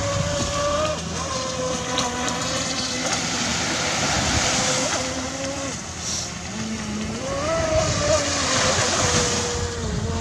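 Pro Boat Voracity RC speedboat's electric motor whining as the boat runs across the water, its pitch wavering with the throttle and climbing briefly about three-quarters of the way through, over a steady wash of wind and surf.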